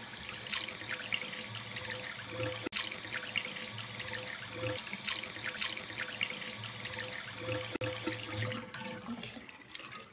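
Bathroom sink tap running, a stream of water splashing steadily into the basin; the flow dies down in the last second or so.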